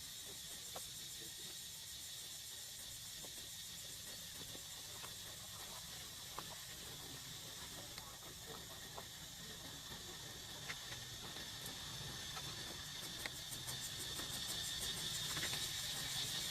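Steady high-pitched insect chorus, growing louder over the last few seconds, with a few faint scattered clicks.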